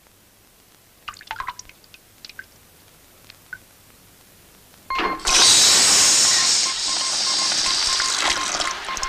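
Cartoon sound effect of a jet of water gushing up out of a minigolf hole. A few light taps come first, then about five seconds in a sudden loud, steady rush of spraying water.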